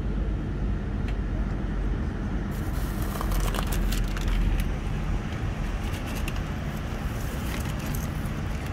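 Cabin noise inside a Boeing 787-9 taxiing after landing: a steady low rumble of the engines and airflow. Scattered light clicks and rattles begin about two and a half seconds in.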